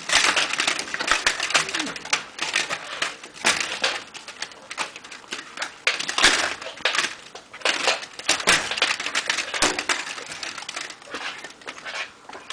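Vertical blind slats clattering and knocking against one another as a baby bats at them: a busy, irregular run of clicks and rattles.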